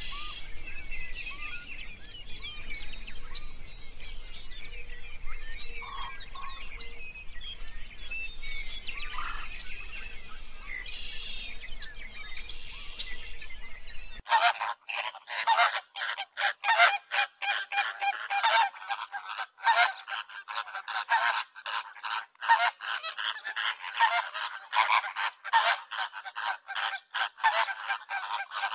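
Small birds chirp faintly over an outdoor background. About halfway through the sound changes abruptly to a flock of flamingos honking, a dense chatter of short calls that never stops.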